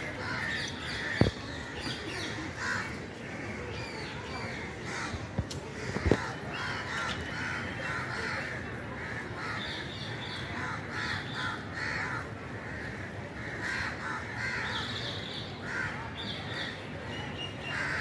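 Birds calling continuously in a chorus of short, harsh calls, with two brief dull thumps, about a second in and about six seconds in.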